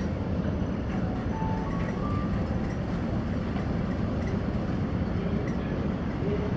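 Steady low rumble of a car ferry under way, its engines and hull vibration droning evenly inside the ship, with a few faint short high tones on top.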